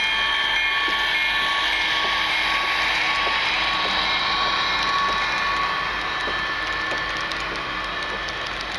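HO scale model freight train rolling past: a steady rattle of the cars' wheels on the layout track, easing a little toward the end. A bell rings in a steady repeat through the first half, then fades out.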